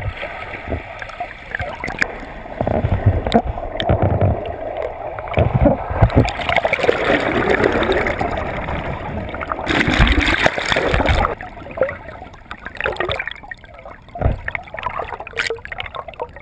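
Turbulent whirlpool water churning and gurgling over a submerged camera, muffled, with irregular low thumps and surges and a stronger rush about ten seconds in.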